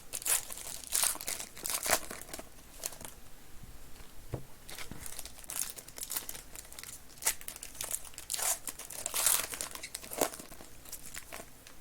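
Crinkling and tearing of a trading-card pack's wrapping as it is opened and handled: a run of short, irregular rustles.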